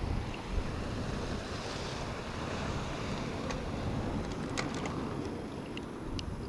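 Wind buffeting the microphone over the steady wash of surf on the rocks, with a few light clicks and taps from handling.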